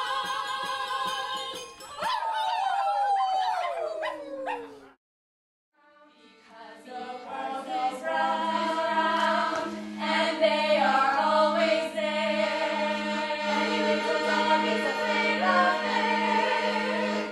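A small group of women singing in harmony, their voices sliding down in pitch and breaking off about five seconds in. After a brief silence, stage music starts up with a steady pulsing low note and a melody over it.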